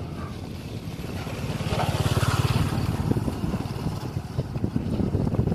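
Old cargo truck's engine idling with a steady low pulse, growing louder about two seconds in.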